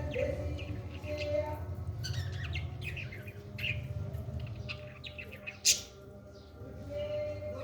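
Parrot chirping and calling in short repeated notes, with scattered clicks and one sharp, loud click about five and a half seconds in.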